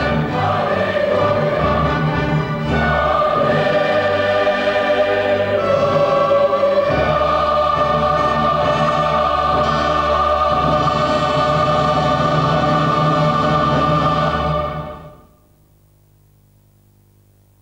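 Large choir singing with an orchestra, ending on a long held chord that dies away about fifteen seconds in. After it only a faint steady hum with static remains.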